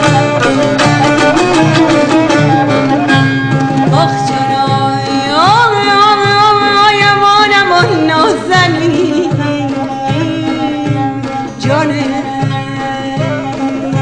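Mazandarani folk music: a steady hand-drum beat under a melody with long held notes that slide up in pitch.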